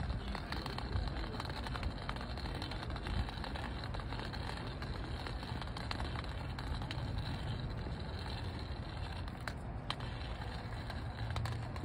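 Wind buffeting the phone's microphone outdoors, a steady rumbling hiss, with faint footsteps on brick paving.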